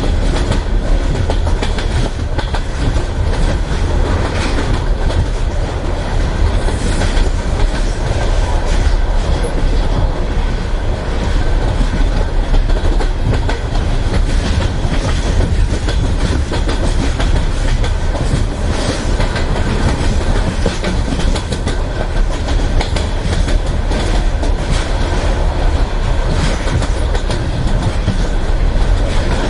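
Russian Railways passenger carriage rolling along the track: a steady low rumble with the wheels' clickety-clack over the rail joints, heard from inside a sleeping compartment.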